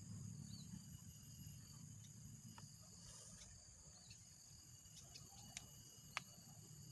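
Faint, steady high-pitched chirring of insects over a low hum, with two sharp clicks near the end.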